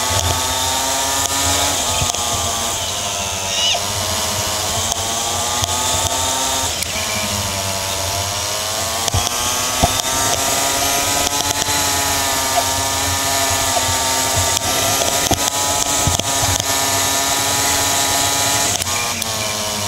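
Kart engine running flat out, heard from onboard, its revs dropping twice, about three and seven seconds in, and climbing again. A steady hiss of wind rides over it.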